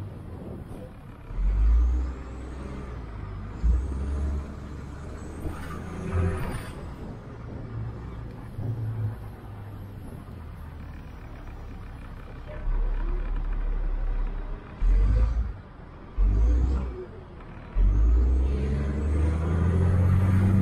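City bus in motion, heard from inside: a steady low rumble from the engine and tyres, broken by several heavy low thumps. A thin rising whine comes a few seconds in and again near the end.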